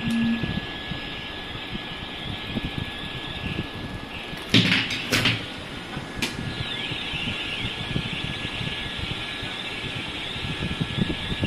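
Battery-operated light-up spinning tops whirring on a tabletop, with a steady high electronic tone and, from about six seconds in, a high warbling sound. A few sharp knocks come about four and a half to five and a half seconds in.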